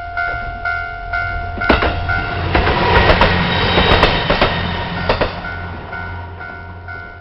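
Japanese level-crossing warning bell ringing its electronic 'kan-kan' about twice a second, while a diesel train on the Ibusuki Makurazaki Line passes through the crossing, its wheels clacking over the rail joints. The train is loudest about three to four seconds in and fades away, leaving the bell still ringing.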